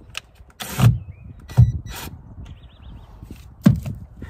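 Cordless drill-driver whirring in short bursts on the screws of a boat's live well hatch frame, with three sharp knocks, the loudest at about one and a half seconds and near the end.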